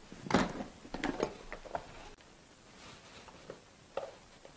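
Snap-lock plastic container lid being unclipped and lifted: several sharp plastic clicks and knocks in the first two seconds, then faint handling and a couple of small knocks near the end.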